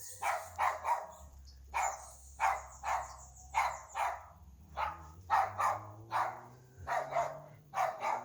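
A dog barking over and over, about two short barks a second in a steady, unbroken run.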